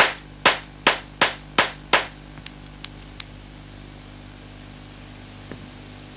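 A pistol fired six times in quick succession, about two or three shots a second, each a sharp bang with a short ring-off. Three faint clicks follow.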